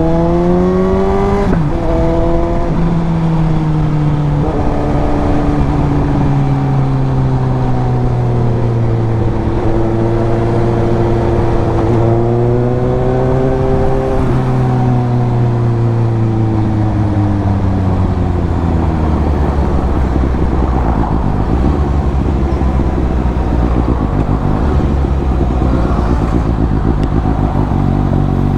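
Suzuki GSX-S750's inline-four engine and exhaust under way. The revs climb and drop at an upshift about a second in, then hold at a cruise with another shift near the middle. The engine then slows, falling in pitch, and settles to a low, steady run for the last several seconds.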